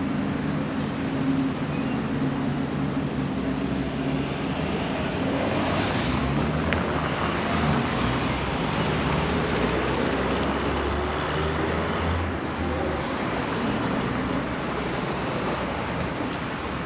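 City street traffic: motor vehicles running and passing close by, with a steady rush of engine and tyre noise and a deeper engine hum through the middle.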